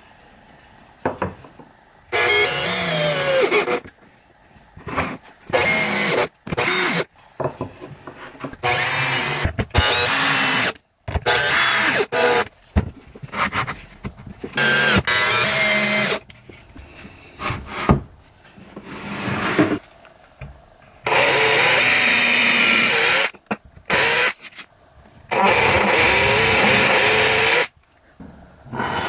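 Power drill running in repeated bursts of one to two seconds, drilling and driving wood screws into pine to fix a guide block, with a whine that shifts in pitch as the load changes. Screws and wooden parts are handled with small clicks in the pauses between.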